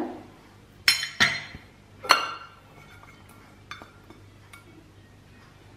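A spoon clinking against the rim of an aluminium pressure cooker as food is tapped off it. There are three sharp clinks in the first couple of seconds, then a couple of lighter taps.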